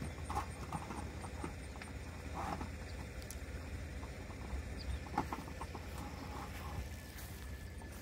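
Irregular light knocks and clacks as the RV sewer hose is slid into the trailer's rear bumper storage tube and the bumper cap is put back on, over a low steady rumble.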